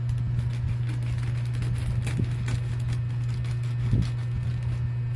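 Parcel packaging being handled and pulled open: scattered crinkles, rustles and small clicks over a steady low hum.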